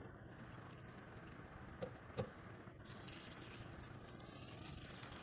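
Two light knocks as pieces of fruit are dropped into a plastic blender cup, then, about three seconds in, a steady splashing hiss of water being poured into the cup over the fruit, which stops at the end.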